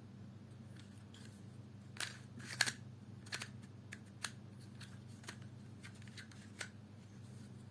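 Plastic twisty puzzle cube being turned by hand, its layers giving a few faint, separate clicks as they rotate.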